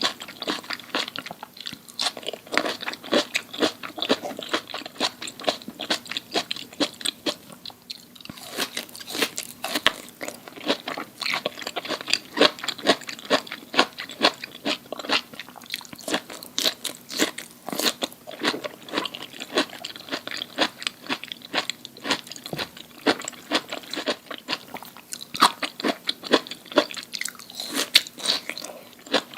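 Close-miked crunchy chewing and biting, a steady run of sharp crackly crunches several times a second: someone eating crisp food in front of the microphone.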